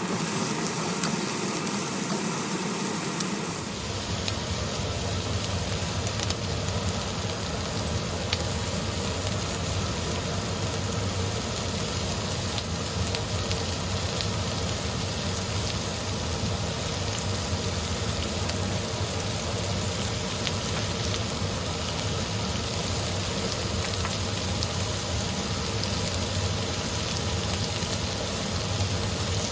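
Food sizzling in a hot pan over a steady low mechanical hum that comes in about four seconds in.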